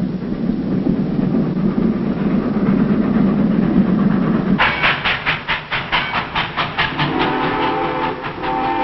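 Steam train running: a low steady rumble, then from about halfway a rhythmic beat of about four a second as it passes. Near the end its whistle sounds several tones at once.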